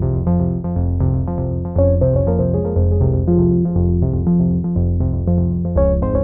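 Background music: a synthesizer keyboard tune over a bass line that changes notes in a steady rhythm.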